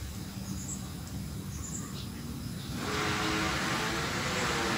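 Steady low background rumble, with a few faint high bird chirps in the first two seconds; about three seconds in, the engine noise of a passing motor vehicle swells up and stays loud to the end.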